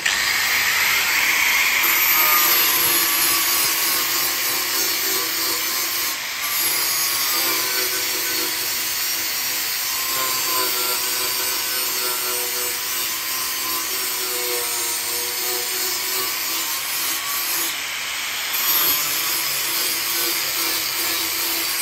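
Small angle grinder with a flap disc running steadily against a sheet-steel oil pan, its motor whine under a gritty grinding hiss as it evens out the weld bead of a gas-welded patch.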